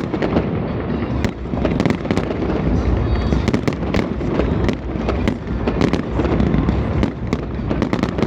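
Fireworks display going off: a rapid, irregular string of sharp bangs and crackles, several a second, over a continuous low rumble of bursts.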